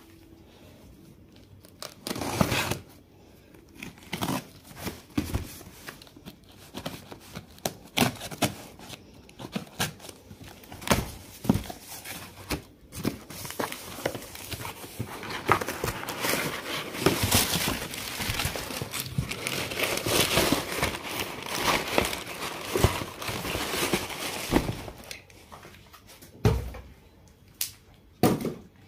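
Cardboard parcel being opened by hand: a box cutter on packing tape, then cardboard flaps pulled, rustled and torn, with many irregular crackles and scrapes. A few louder knocks near the end as the boxes are handled and set down.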